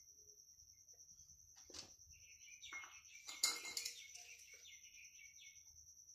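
Faint, steady high-pitched insect trill, with a few brief scratchy noises in the middle, the loudest about three and a half seconds in.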